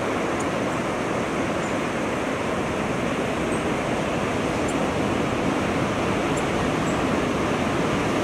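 Rough ocean surf breaking and washing ashore, a steady, even rush of whitewater noise.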